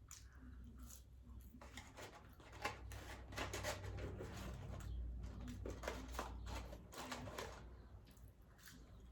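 Close-miked chewing and mouth sounds of someone eating McDonald's burgers and french fries: irregular soft clicks and smacks, over a low steady hum.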